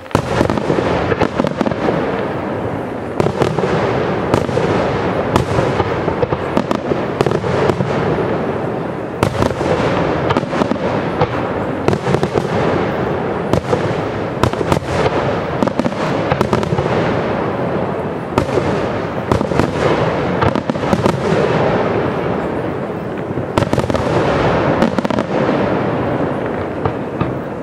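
Aerial fireworks shells bursting in a dense, continuous barrage of sharp bangs, starting abruptly and thinning out near the end.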